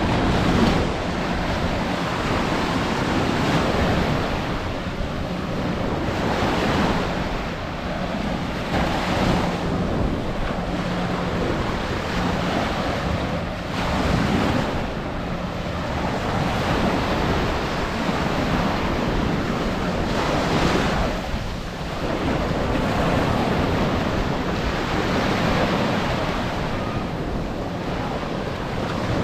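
Ocean surf washing onto a sandy beach, swelling and ebbing every few seconds, with wind buffeting the microphone.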